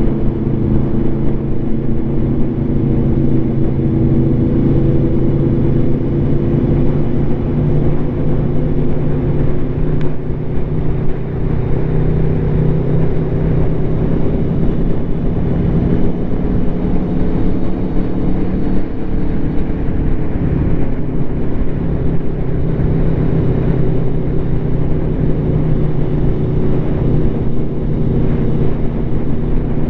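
Aprilia Tuono V4's V4 engine through an SC Project SC1-R slip-on exhaust, running at fairly steady revs with only gentle rises and falls in pitch as the motorcycle cruises. Heavy wind rumble buffets the microphone throughout.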